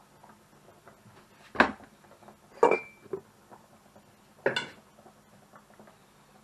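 Kitchen clatter of cookware being handled: three sharp knocks and clinks, the second with a brief metallic ring, and a softer knock just after it.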